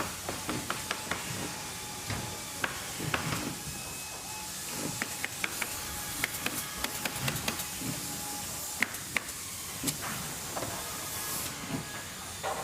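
Factory background ambience: a steady machinery hiss with frequent, irregular sharp clanks and knocks.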